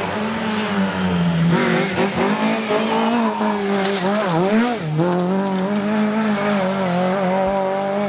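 Lada rally car's four-cylinder engine running hard at high revs. About four seconds in, the pitch drops and jumps back up in quick swings as the driver lifts off and blips the throttle through a bend, then it settles to a steady high-rev drone.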